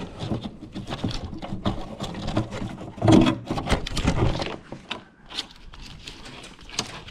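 Irregular rustling, scraping and clicking of a car's wiring harness and its plastic connectors being handled and pulled apart, louder for a second or so about three seconds in.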